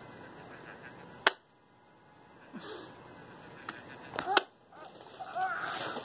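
Hatchimal toy pecking at the inside of its plastic egg shell to hatch: two sharp taps, about three seconds apart.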